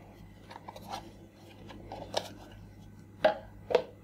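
A plastic toy walkie-talkie being handled: light clicks and taps, then two sharper knocks near the end as it is set down on the table. A faint steady hum runs underneath.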